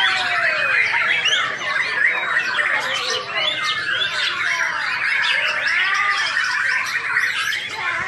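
White-rumped shama singing an unbroken, rapid stream of varied whistles, glides and chattering phrases.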